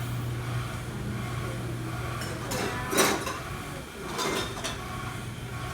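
A sharp, loud knock about three seconds in, then a softer one about a second later, with a few faint clicks around them, over a steady low hum.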